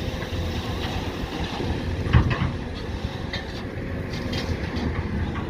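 Diesel engine of a JCB backhoe loader running steadily at work, with one sharp knock about two seconds in.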